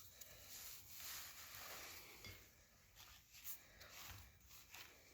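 Near silence: faint room tone with a few soft clicks of parts being handled, one about three and a half seconds in.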